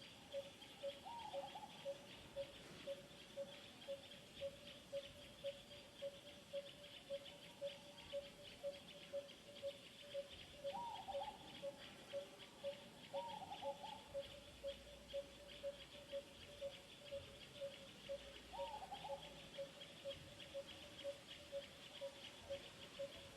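Outdoor animal chorus: a single low hollow note repeats evenly about three times every two seconds, over a continuous high insect buzz. A short wavering call breaks in four times, about a second in and again around 11, 13 and 19 seconds.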